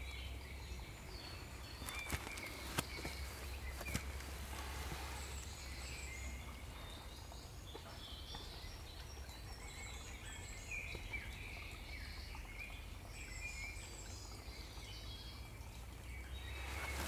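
Birds singing faintly in the background, short chirps scattered throughout, over a low steady hum, with a few soft clicks about two to four seconds in.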